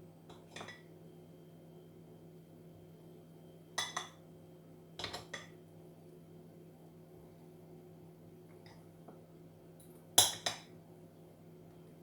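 A table knife clinking and tapping against crockery while butter is spread on slices of bread: a few short clinks, the loudest about ten seconds in.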